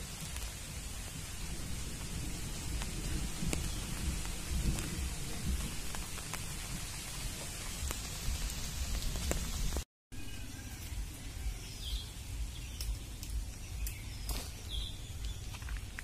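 Wind buffeting the microphone as a low, uneven rumble over a steady hiss, with a few short clicks. The sound breaks off briefly about ten seconds in, then carries on lighter, with a few bird chirps.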